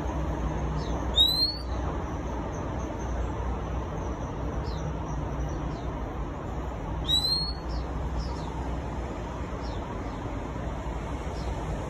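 Oriental magpie-robin whistling: two loud, clear rising notes about six seconds apart, with faint short down-slurred notes in between. A steady low traffic rumble runs underneath.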